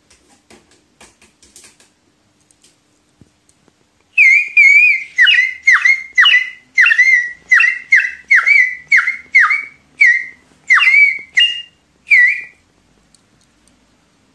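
Plastic bird-shaped water whistle, filled with water, blown in a run of about fifteen short warbling toots, roughly two a second, starting about four seconds in; the water gives it a trilling, quirky tone. Faint clicks come before the first toot.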